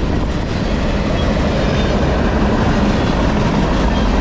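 Freight train cars, boxcars and covered hoppers, rolling past close by: a loud, steady rumble and rattle of wheels on the rails.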